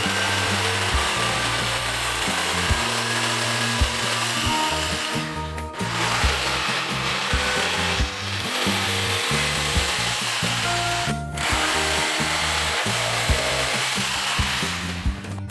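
Electric jigsaw cutting through plywood, running steadily and stopping briefly three times, with background music.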